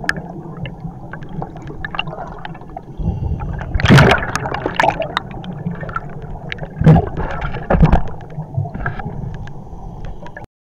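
Underwater bubbling from divers' exhaled air rushing past the camera. There are louder gushes of bubbles about four, seven and eight seconds in, and the sound cuts off abruptly just before the end.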